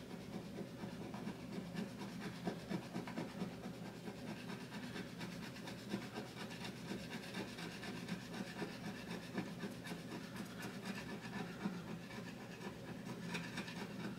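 A slim metal tool scraping the coating off a scratch-off card: a faint, continuous run of fine, quick scratching strokes.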